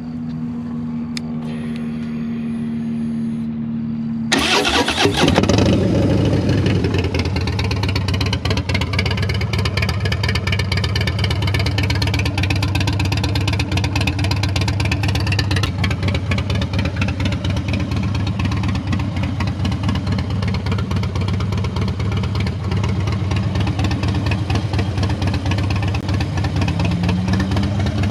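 Harley-Davidson Dyna Low Rider's Twin Cam V-twin through an SP Concepts Lane Splitter exhaust, starting about four seconds in with a loud burst, then settling into a steady idle. Before it catches, a steady low hum is heard; near the end the revs rise slightly.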